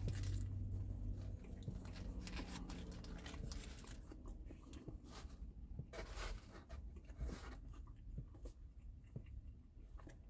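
A person chewing a mouthful of grilled chicken pita wrap, with soft, irregular chewing sounds. A low hum cuts off about a second and a half in.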